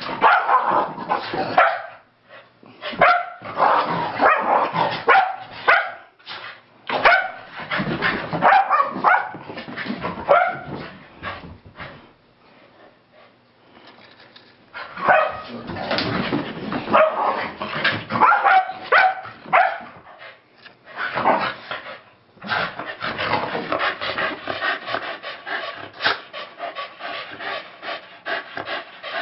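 Two keeshonds barking and yipping in bursts as they play rough, with a quieter lull about halfway through. Near the end the calls give way to fast, steady panting as the dogs stop to catch their breath.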